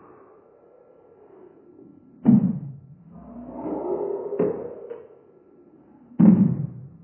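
Heavily slowed-down, deep-pitched recording: two loud thuds about four seconds apart, with low, drawn-out murky sounds between them.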